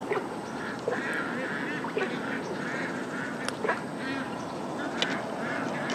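A chorus of repeated animal calls overlapping several times a second, with a few sharp chirps among them.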